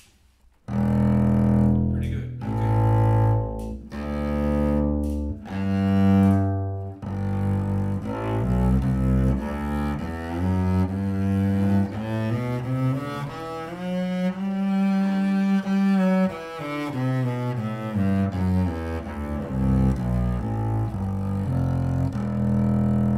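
Shen 7/8 Gemunder Willow Flatback double bass, strung with well-used Obligato strings, played with a bow. Starting about a second in, a few long separate low notes, then a faster run of shorter notes that climbs higher and comes back down.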